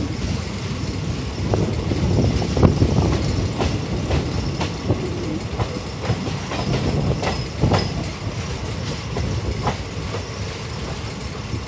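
Passenger coach wheels running over rail joints and points, a steady low rumble with irregular sharp clacks every second or so, heard from alongside the moving coach.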